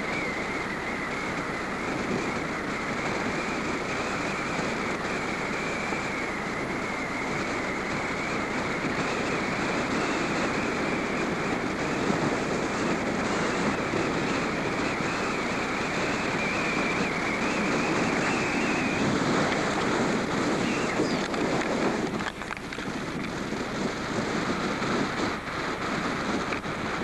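Wind buffeting the microphone: a steady rushing noise, with a faint wavering high whine that fades out about two-thirds of the way through.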